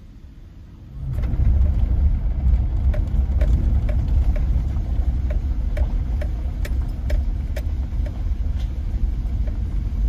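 A vehicle pulling away and driving on a woods road, heard from inside: a loud, steady low engine and tyre rumble starting about a second in, with scattered light ticks.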